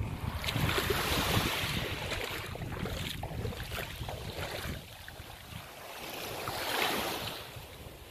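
Small waves washing up the gravel and pebble beach, rising and falling twice, with wind buffeting the microphone.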